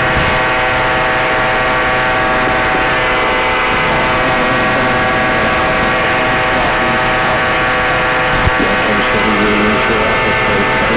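A Buccaneer II amphibious ultralight's two-stroke engine running steadily in flight: a loud, even drone with no change in pitch, picked up through the pilot's headset microphone on a COM radio whose noise cancelling is not set. A single brief knock sounds about eight and a half seconds in.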